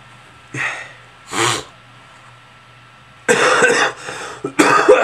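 A man's voice, two short gasping in-breaths and then two loud sneezes, the first starting suddenly a little over three seconds in and the second just over a second later.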